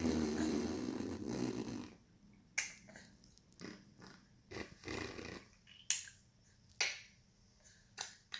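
A baby's mouth noises: a rough, raspy breathy sound for about two seconds, then a series of sharp tongue clicks and short smacking sounds.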